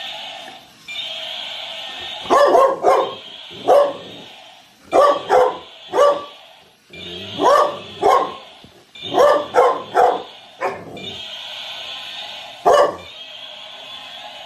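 Large dog barking at a walking toy dinosaur, about a dozen sharp barks, mostly in quick groups of two or three, the first about two seconds in and the last near the end.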